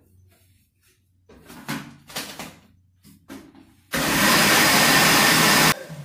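A few light knocks and bumps, then a Philco countertop blender's motor starts about four seconds in and runs loud and steady, blending a liquid mixture of canned corn, milk, margarine and egg, before stopping abruptly.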